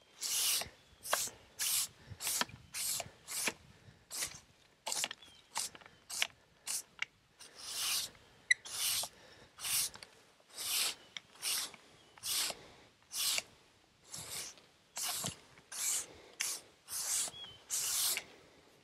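Push broom sweeping sawdust off a freshly milled wood slab: short brisk swishes of the bristles across the sawn face, a little more than one a second, with a few brief pauses.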